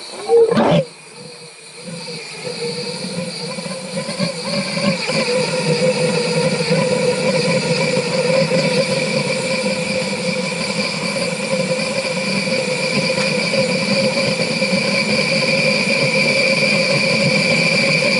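3D-printed plastic ThermoJet pulsejet on propane: a loud whoomp as the mixture ignites about half a second in, then a steady droning hiss with a hum that slowly grows louder. This is a start attempt in which the engine comes close to running but does not catch.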